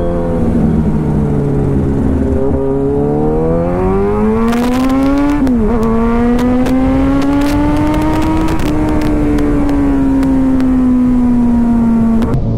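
Kawasaki Ninja motorcycle engine heard from the rider's seat while riding. Its pitch dips, then climbs under throttle, drops sharply at a gear change about five and a half seconds in, and then holds nearly steady, easing slightly near the end. A quick run of sharp clicks comes in around the gear change.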